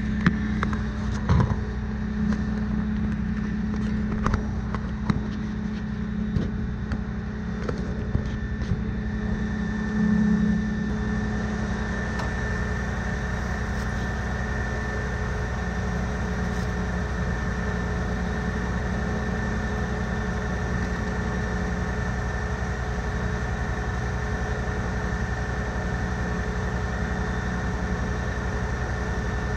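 A steady engine hum, the fire engine's motor and pump running to feed the foam hose lines. Sharp clicks and knocks come now and then in the first several seconds, with a brief louder swell about ten seconds in.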